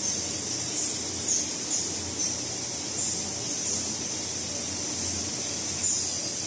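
Machine-room noise from a row of running CNC longitudinal (Swiss-type) lathes: a steady high hiss over a low hum, with brief faint chirps in the hiss every second or so.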